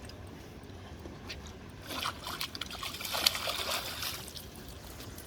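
Water splashing and sloshing for a couple of seconds near the middle: a hooked trout thrashing at the surface as it is brought in.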